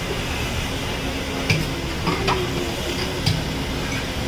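Steady hiss of a busy pakoda stall, with three sharp clicks of metal utensils and steel tins.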